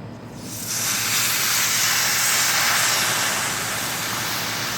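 Garden hose spraying water onto a window air-conditioner filter: a steady hiss of spray that starts about half a second in.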